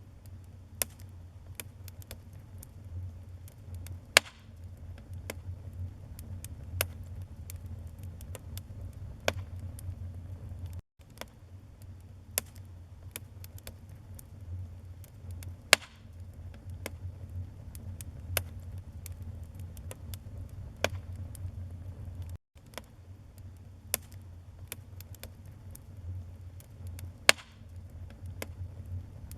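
Wood fire burning in a fireplace: a low steady rumble with sharp crackles and pops every second or two, the loudest a few seconds in, near the middle and near the end. The sound cuts out for an instant twice.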